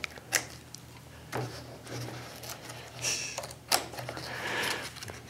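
Page of a hardcover picture book being handled and turned: a few light taps and clicks, then paper rustling as the page is lifted over.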